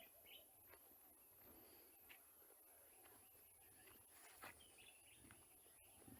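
Near silence: faint outdoor ambience with a few faint, short bird chirps and a steady high hiss.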